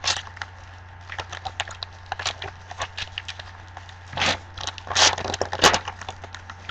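Foil trading-card pack being torn open by hand: the wrapper crinkles and crackles in a run of short clicks, with three louder rips in the second half.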